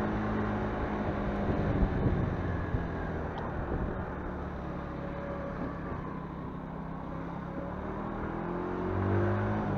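Motorcycle engine running at low speed through a street, with road and wind noise. Near the end the engine note rises as it speeds up.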